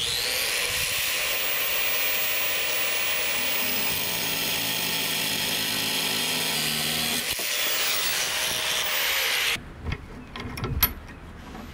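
Corded DeWalt angle grinder with a cut-off wheel cutting through 3/8-inch threaded rod held in a vise: a steady high whine that starts at once and runs under load while the wheel bites, then sags and stops about nine and a half seconds in. A few light metal clicks follow as the vise is worked.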